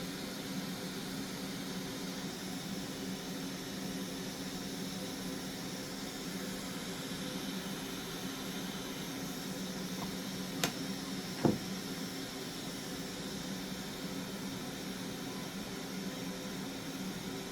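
Hot air rework tool blowing steadily with a hiss and a low hum, heating the underside of a graphics card's circuit board to melt low-melt solder on the connector pins. Two brief clicks a little under a second apart about eleven seconds in.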